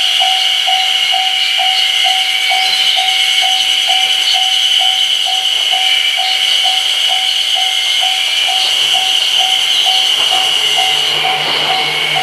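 Railway level-crossing warning bell ringing steadily at about three strikes a second over a dense, unbroken chorus of Ezo spring cicadas. A train's low rumble comes in over the last few seconds.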